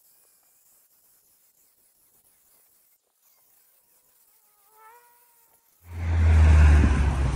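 Angle grinder cutting a concrete sidewalk, heard only as a faint high hiss. About six seconds in, a loud low rumble of wind buffeting the microphone comes in suddenly and drowns it out.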